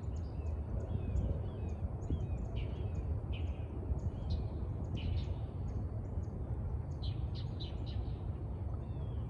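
Small birds calling with many short, high chips and brief down-sweeping notes scattered irregularly, over a steady low rumble.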